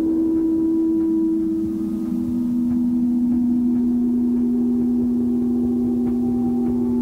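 Ambient music from a 1992 four-track cassette recording: low sustained drone tones held steady, with a wavering tone sliding down in pitch at the start and the drone moving to a new pitch about two seconds in.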